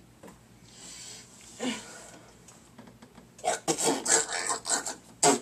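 A person's breathy exhale, then, about three and a half seconds in, a rapid run of rough, breathy vocal bursts with a hand over the mouth, ending in one sharp burst.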